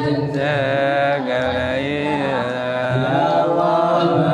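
Men's voices chanting an Islamic prayer together in a slow, drawn-out melody, each line held and sliding in pitch.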